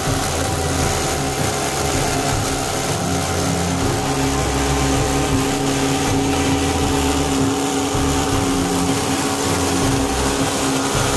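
Miniature supercharged V8 model engine in an RC boat, running steadily at an even speed.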